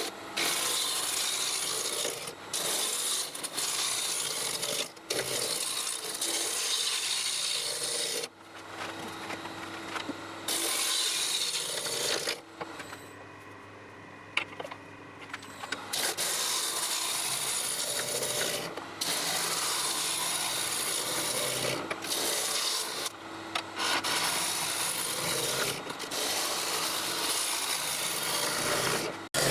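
Lathe tool cutting spinning yew, a steady scraping hiss broken by short gaps, with a quieter stretch in the middle where the lathe runs with little or no cutting.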